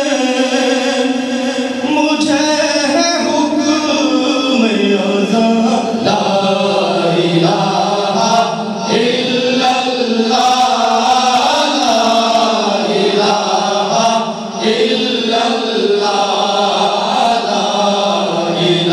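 Male nasheed group singing in chorus, a lead voice with a choir of men, in long held phrases with short breaths between them.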